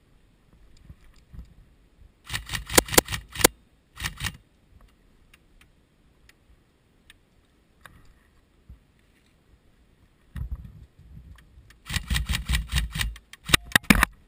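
Tokyo Marui M4 electric airsoft rifle firing short rapid bursts, a cluster of them a couple of seconds in and another near the end. Between them there is quieter rustling and knocking of gear against the wooden barricade.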